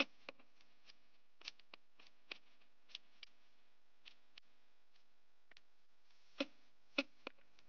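Faint, sparse clicks and ticks at irregular intervals, with a few louder ones near the end.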